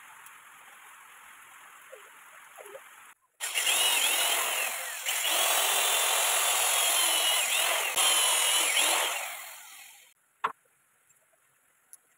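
Electric power tool working wood: its motor starts abruptly about three seconds in and runs loud under load for about six seconds, the whine dipping and rising in pitch, then winds down, followed by a few sharp clicks. A soft steady hiss comes before it.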